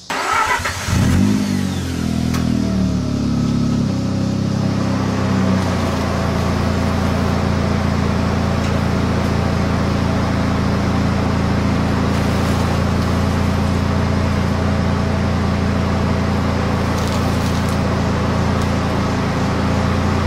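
Mazda RX8's 13B Renesis twin-rotor rotary engine starting up, catching and flaring about a second in, then idling. The idle shifts and settles a few seconds later into a steady, even idle.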